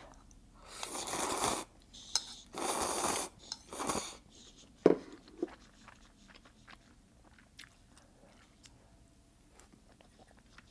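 Noodles slurped into the mouth in three long sucks over the first four seconds, followed by quiet chewing with faint wet mouth clicks.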